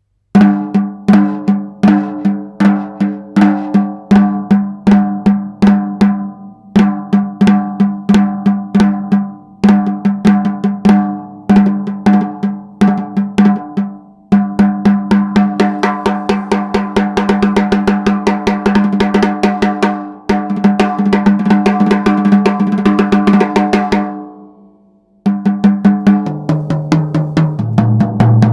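Pearl Midtown compact drum kit played with maple sticks and recorded without EQ. It opens with snare-heavy patterns in short phrases that ring out, then settles into a longer unbroken groove with cymbal wash. Near the end it stops and decays, then comes back with a fill stepping down in pitch across the toms.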